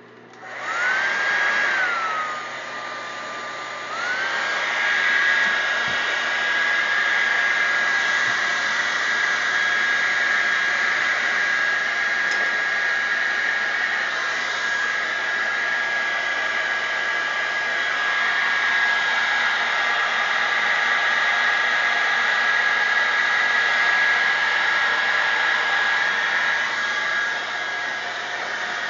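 Handheld hair dryer switched on, blowing with a steady rush of air and a high whine. About two seconds in, the whine drops lower; about four seconds in, it rises back and holds steady.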